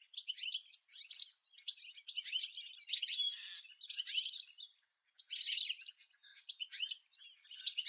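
European goldfinch song: a fast twittering of high chirps and trills in several phrases, with a short break about five seconds in.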